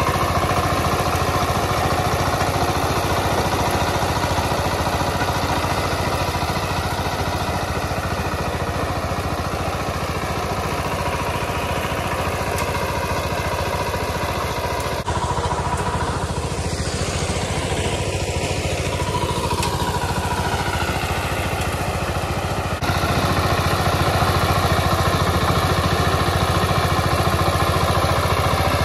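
VST Shakti 130 DI power tiller's single-cylinder diesel engine running steadily under load while its rotary tiller works dry soil, with a brief shift in engine pitch around the middle.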